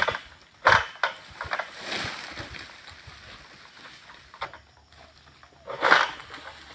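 Long-handled pole sickle pulled through oil palm frond stalks during pruning. It gives two short, sharp rasping swishes, about a second in and near the end, with leaf rustling between them.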